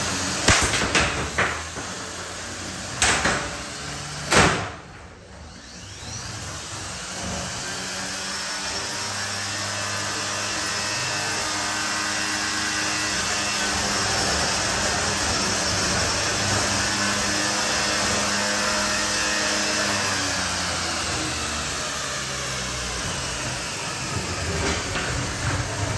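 Combat robots in an arena: a handful of sharp metal impacts in the first few seconds, then a steady electric-motor whir that slowly swells and eases off near the end.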